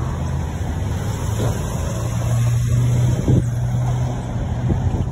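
A motor vehicle engine running close by: a steady low hum that swells for a couple of seconds in the middle, over street traffic noise.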